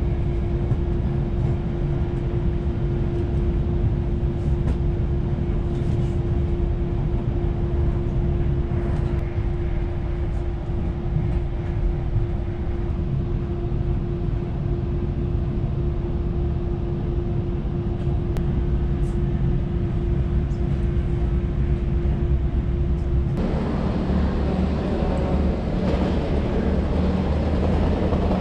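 Steady low rumble of a moving vehicle heard from inside, with a constant hum over it. About 23 seconds in, the sound changes abruptly to a slightly different rumble with a lower hum.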